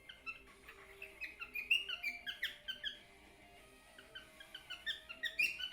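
Cockatiel chirping in quick runs of short, high whistled notes: one run in the first three seconds, another starting about four seconds in.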